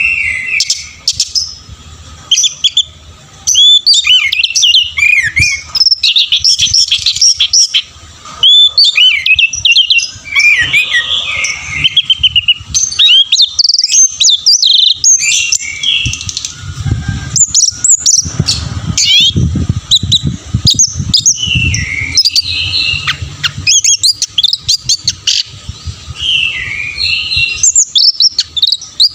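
Orange-headed thrush (anis merah) singing a long, varied song of quick rising and falling whistled phrases and chirps, with hardly a pause. A low rumble runs under the song in the middle.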